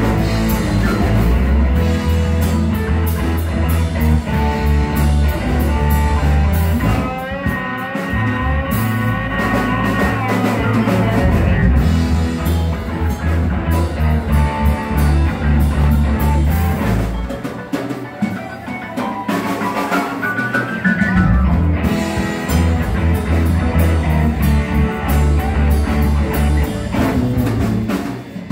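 Live rock band playing an instrumental break: electric guitar lead over bass and drum kit, with wavering held notes and, about two-thirds through, a quick rising run up the neck.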